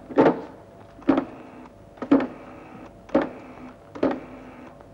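Rotary telephone being dialled: a short whirring, clicking burst from the dial returning, about once a second, six times in a row.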